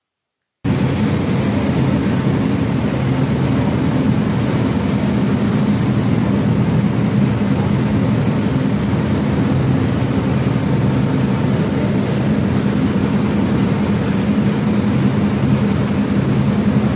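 A passenger boat's engine drone with the rushing, churning water of its wake, starting suddenly about half a second in and then holding steady.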